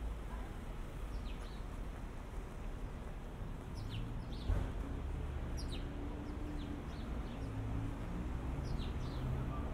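City street ambience: a steady low traffic rumble, with small birds giving short, falling chirps several times. A single thump about four and a half seconds in, and a low engine-like hum from the middle on.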